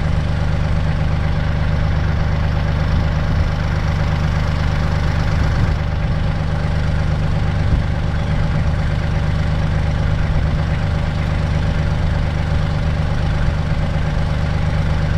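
Kubota L3800 tractor's diesel engine idling steadily.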